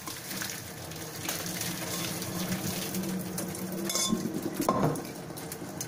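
Hot water poured from a stainless steel saucepan through a mesh strainer into a steel sink, draining boiled spinach. There is a single metallic clink of pan against strainer about four seconds in.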